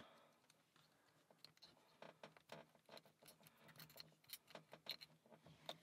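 Faint, irregular clicks and scratches of a lock pick being raked across the pins of a four-pin laminated steel padlock under a tension tool. They start about a second and a half in and come more often toward the end, as the lock is about to open.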